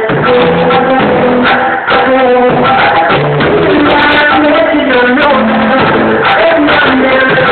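Loud music with a steady beat and a melody of held notes.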